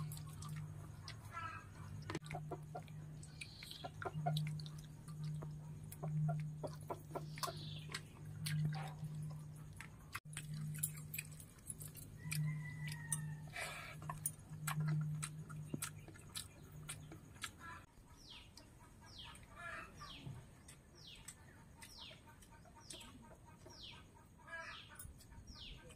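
Chickens clucking and birds calling around a rural yard, over a low steady hum that stops about two-thirds of the way through. Near the end a bird gives a run of quick, falling chirps, about two a second, with scattered soft clicks throughout.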